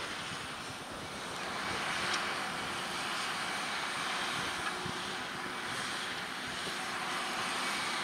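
John Deere 6250R tractor's six-cylinder diesel engine running steadily under load as it pulls a seven-furrow plough through the soil, getting a little louder about a second in.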